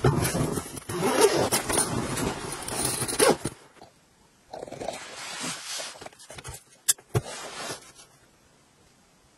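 Nylon sleeping bag rustling and scraping as someone settles into it, stopping abruptly after about three and a half seconds. Then softer rustling with two sharp clicks in quick succession.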